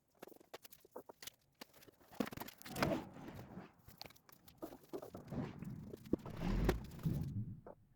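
Scattered clicks, knocks and scrapes of objects being handled, with louder bumps about three seconds in and again near seven seconds.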